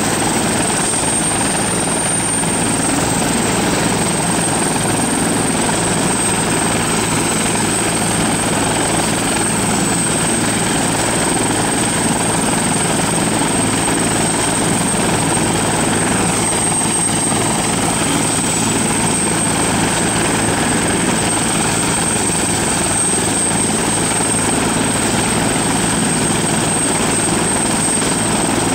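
Bell 412EP helicopter running on the ground with its four-blade main rotor turning: a steady high turbine whine above constant rotor and engine noise.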